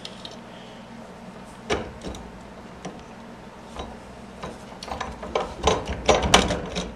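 Metal clicks and knocks as hands work apart the scissors (torque link) on a homebuilt aircraft's spring-strut landing-gear leg: a few scattered ones, then a quick cluster of knocks near the end.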